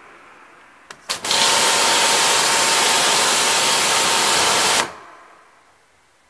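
Pressure washer lance spraying a jet of water onto a car's front end. A couple of short clicks about a second in, then a steady loud hiss for about three and a half seconds that cuts off suddenly.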